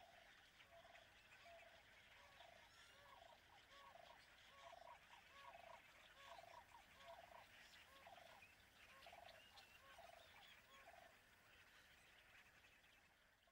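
Faint animal calls: a long run of short, repeated calls, several a second, over a steady high hiss.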